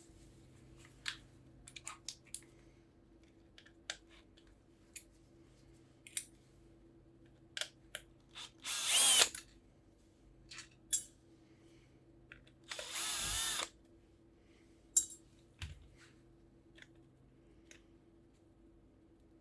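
Cordless drill-driver spinning in two short bursts of about a second each, backing out screws during disassembly, with scattered clicks and taps of tools and parts between them.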